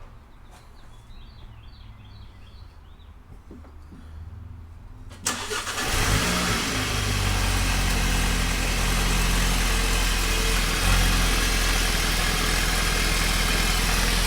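A 2019 Volkswagen GTI's turbocharged 2.0-litre four-cylinder engine is started about five seconds in, catching quickly and settling into a steady idle, with a brief swell in engine speed a few seconds later. It is the first start after an aftermarket carbon-fibre intake was fitted.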